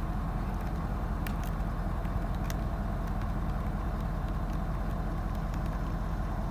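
Ford 6.7 L Power Stroke V8 turbo-diesel idling steadily in Park, heard from inside the cab, with a few faint clicks in the first seconds.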